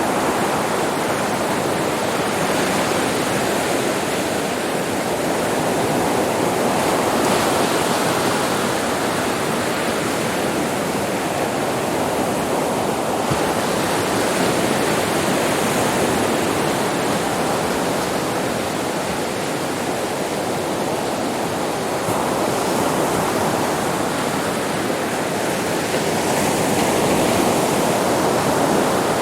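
Sea waves washing onto a beach: continuous surf, swelling and easing slowly every several seconds.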